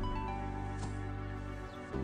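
Instrumental background music with sustained notes; the chord changes near the end.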